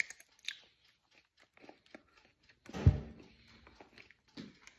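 Close crunching and chewing of fresh coconut meat, with small scattered clicks from pieces being broken off the shell, and a louder thump a little under three seconds in.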